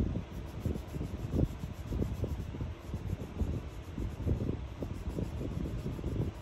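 Colouring on paper on a tabletop: irregular back-and-forth scribbling strokes, heard as a dull rubbing with soft knocks several times a second.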